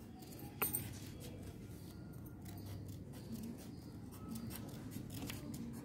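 Sheet of craft paper being handled and folded, with two sharp clicks close together a little under a second in and a few faint ticks later, over a low steady hum.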